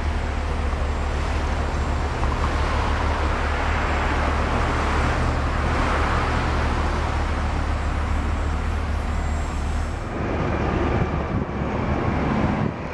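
Power soft top of a 2011 Chevrolet Camaro SS Convertible folding back, its motor whirring for about ten seconds over the steady low hum of the 6.2-litre LS3 V8 idling. About ten seconds in, the sound gives way abruptly to street traffic noise.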